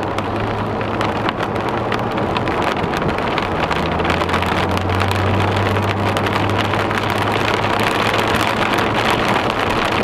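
Car driving on a rain-soaked road, heard from inside the cabin: a steady rush of tyre spray and heavy rain, with many small raindrop ticks on the windshield and a low engine hum.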